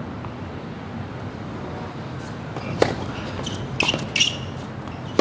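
Tennis ball struck by rackets on a hard court: a sharp serve hit about three seconds in, followed by several quicker hits and bounces of the ball as the rally starts.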